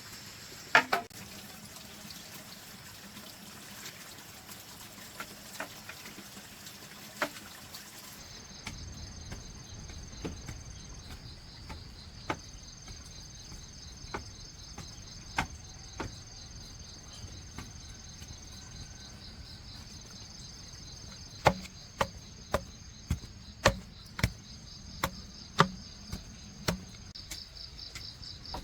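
Insects chirring steadily in a high band, starting abruptly about eight seconds in. Sharp knocks of hand work on bamboo recur every second or two, coming faster and louder in a run of about ten near the end.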